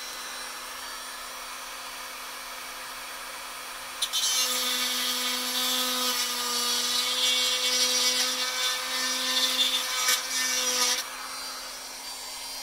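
Dremel 400 XPR rotary tool running with a steady whine; about four seconds in the bit bites into the plastic wheel frame, grinding louder for about seven seconds as it cuts the round motor-mount holes into slots, then runs free again.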